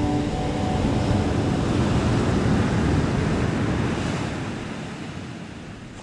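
Ocean surf breaking and washing up a sandy beach, a steady rushing noise that fades out over the last couple of seconds.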